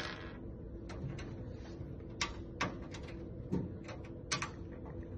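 Scattered sharp metallic clicks and taps from a desktop PC's steel side panel and its screws as the cover is seated and the screws are turned in by hand. Six or so short clicks, irregularly spaced, two of them close together near the end.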